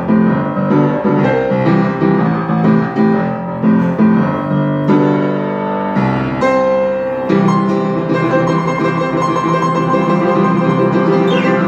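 Upright piano played six-hands by three players at once: struck chords in a steady pulse, giving way about halfway to a fuller, busier passage of notes.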